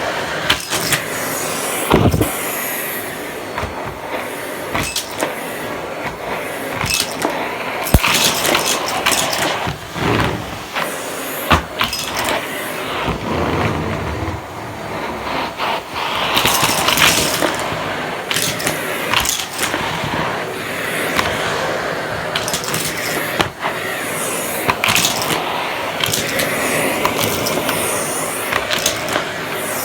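Vacuum cleaner running over a floor, with frequent sharp clicks, rattles and knocks.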